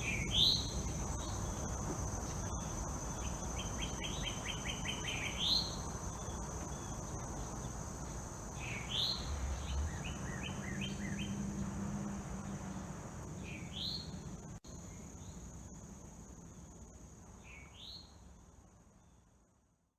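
Outdoor ambience: a steady high-pitched insect drone, with a bird repeating a short rising call about every four seconds and short chirping trills in between; it all fades out near the end.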